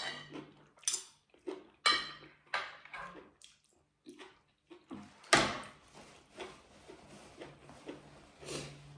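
Metal spoon and fork clinking and scraping on a ceramic plate, with several sharp clinks in the first three seconds as food is scooped up. About five seconds in comes the loudest sound, a short noisy burst, and a softer one follows near the end.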